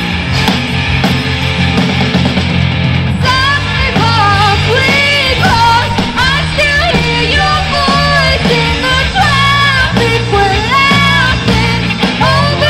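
Live rock band playing with electric guitars, keyboard and drums; a female lead vocalist comes in singing about three seconds in after a short instrumental stretch.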